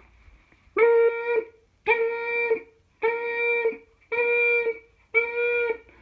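Fire alarm warning system sounding its alert tone: five steady-pitched electronic beeps, each about two-thirds of a second long, about one a second. This is the alert signal that comes before the 'fire alarm system has operated, stand by' message, as opposed to the evacuate signal.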